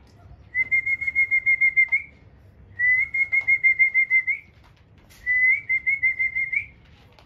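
Three loud whistled trills. Each is a rapid run of about eight notes a second on one pitch and ends in a short upward flick, with pauses of about a second between them.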